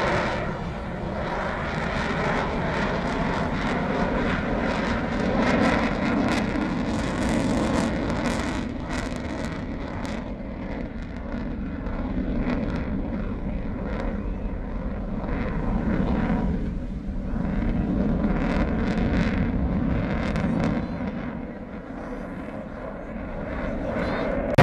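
Jet noise from a twin-engine fighter jet flying a display overhead. It rises and falls in waves as the jet passes and turns, and eases off for a moment near the end.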